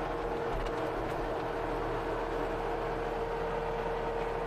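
CASE TR270B skid steer diesel engine running steadily at idle, with a steady whine held over the engine noise.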